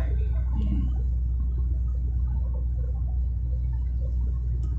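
Steady low rumble of a moving car heard from inside the cabin: engine and tyre noise at cruising speed.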